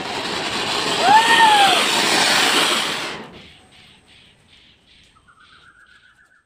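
Ground fountain firework (anar) hissing as it sprays sparks, loudest for about two seconds, then dying away after about three seconds. A short rising-then-falling call sounds over the hiss about a second in.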